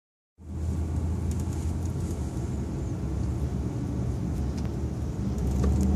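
Dodge Ram 1500's 5.7-litre Hemi V8 running steadily, a low even hum heard from inside the cab, with a few faint clicks.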